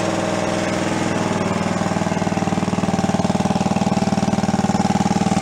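Small air-cooled single-cylinder engine idling with an even thumping beat, its carburetor not yet dialed in. The beat grows a little louder and more distinct about two seconds in.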